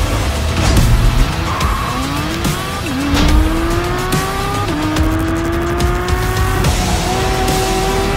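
Porsche 718 Cayman GT4 RS's naturally aspirated 4.0-litre flat-six accelerating hard on track. Its pitch climbs and drops back at each upshift, three times.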